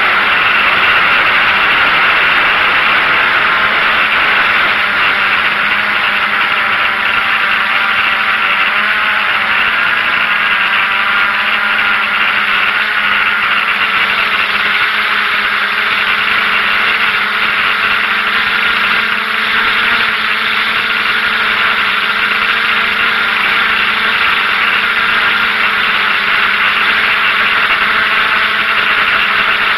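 DJI F550 hexacopter's six motors and propellers running in flight, heard from the camera on board as a steady drone and whine whose pitch wavers slightly as the craft manoeuvres.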